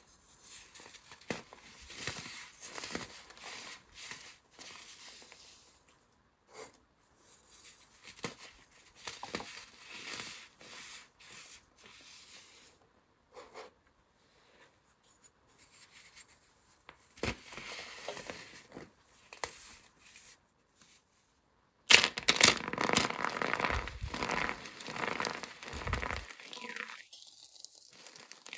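Hands pressing and rubbing dry soap crumbs and baking soda powder, giving soft, scattered crunches and rustles. About 22 seconds in, it turns suddenly louder and dense: starch-coated soap pieces crunching and crumbling as they are squeezed in the hands.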